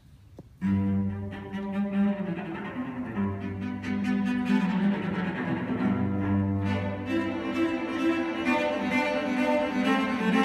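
Two cellos playing a duet, starting together suddenly less than a second in. One holds long low notes while the other plays a moving melody above.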